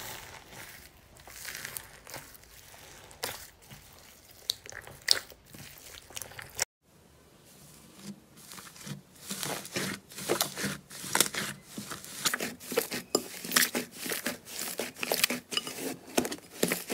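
Slime being squeezed and pressed by hand, giving off a run of irregular crackles and crunches. After a brief cut about seven seconds in, the crackling comes denser and louder.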